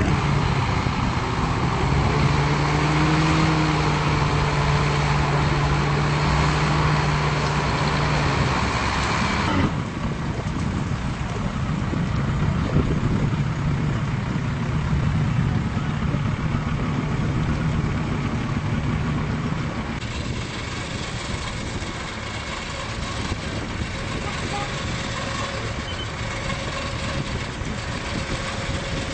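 Engine running steadily, its sound changing abruptly about ten and again about twenty seconds in.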